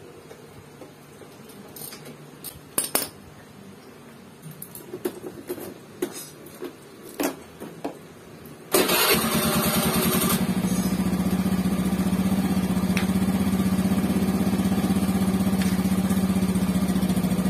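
Scattered metal clinks of hand tools, then about nine seconds in a Honda Beat FI scooter's air-cooled single-cylinder engine starts and settles into a steady idle, a test start after the exhaust and magneto cover are refitted.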